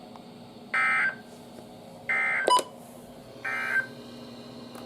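Emergency Alert System end-of-message data tones: three short buzzy digital bursts about a second and a half apart, which mark the end of the alert. A sharp click comes just after the second burst.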